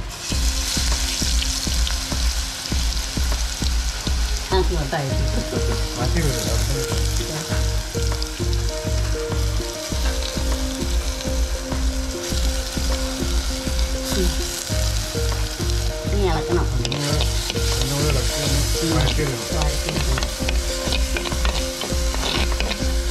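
Ginger-garlic paste sizzling in hot oil in a clay pot, stirred with a metal spoon. Background music with a steady beat plays underneath.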